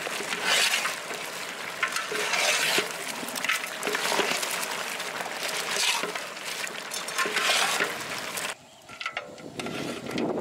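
A ladle stirring chunks of goat head meat and spice powders in a large aluminium pot, a wet scraping and churning that swells with each stroke about every one and a half to two seconds. It drops off abruptly near the end.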